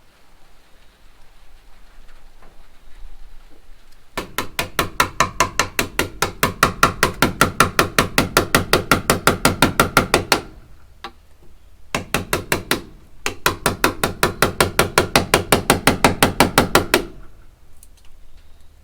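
Rapid, evenly spaced hammer blows, about six a second, in two long runs of several seconds with a short pause between them, each strike carrying a light ring.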